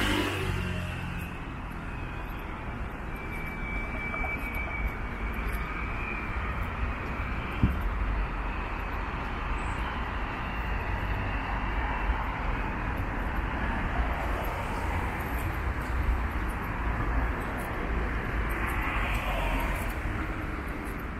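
City street traffic: steady road noise from cars on a wide multi-lane avenue, with a vehicle passing close about nineteen seconds in.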